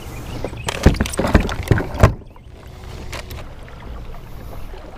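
A quick run of knocks and thumps for about the first two seconds, then the steady low wash of water and wind as a Hobie pedal kayak moves across open water.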